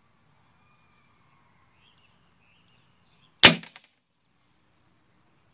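A single shot from a Gamo Black Bull IGT Mach 1 .177 break-barrel air rifle, a sharp crack about three and a half seconds in with a brief echoing tail.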